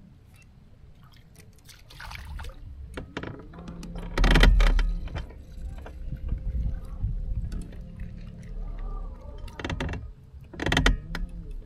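A spinning rod and reel being worked and a crappie swung into the boat and unhooked by hand: a run of clicks and rattles, with a loud bump about four seconds in and another near the end.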